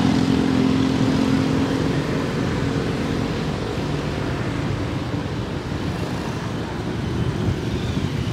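Street traffic noise, with a motor vehicle engine humming close by for the first two or three seconds before fading into the steady traffic sound.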